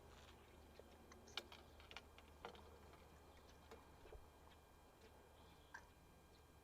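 Near silence broken by a few faint, scattered clicks and ticks, the sharpest about a second and a half in, over a faint steady low hum.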